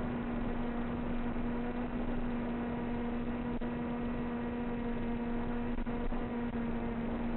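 Wind buffeting the microphone with a low rumble, under a steady low hum that holds one pitch.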